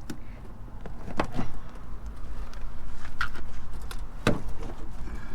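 Scattered clicks and knocks of plastic interior trim and seat parts being handled inside a car, over a steady low rumble.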